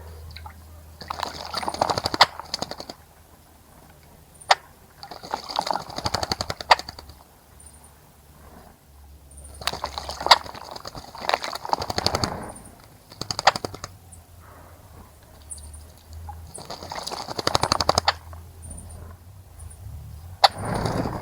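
A small bird bathing in a birdbath, splashing and flicking water with its wings in five bouts of a second or two each, with short pauses between.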